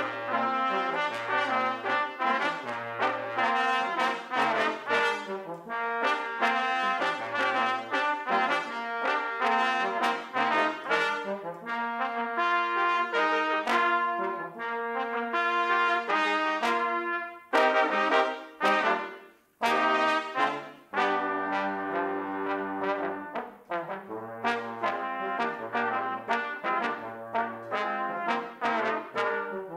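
Brass quartet of two trumpets and two trombones playing together in short, detached notes over a repeating low trombone note, breaking off briefly about twenty seconds in before carrying on.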